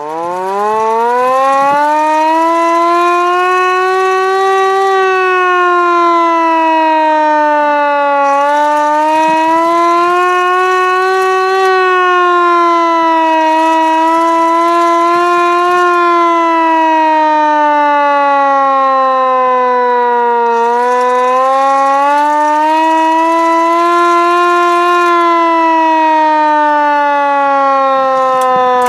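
LK-120 hand-cranked single-tone siren wailing loudly. Its pitch climbs as it is spun up at the start, then rises and falls slowly three times with the cranking speed, sinking lower near the end, with a rushing hiss over it while it climbs.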